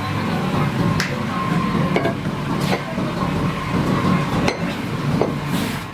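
Workshop machinery running with a steady low hum, broken by a handful of sharp metallic clicks and knocks at irregular intervals.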